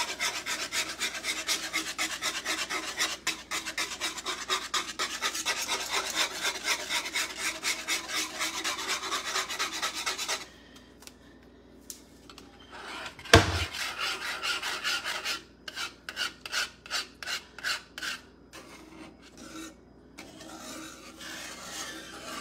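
Wire whisk scraping fast and rhythmically against the bottom of a cast iron skillet as it stirs thickening milk gravy. A short pause comes about halfway, then one sharp knock, then more strokes that grow softer toward the end.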